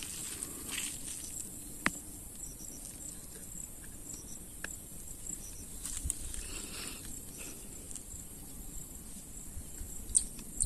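Insects chirring in a steady high chorus by a rural pond, with a sharp click about two seconds in and a few fainter clicks and rustles from hands working bait onto a fishing hook.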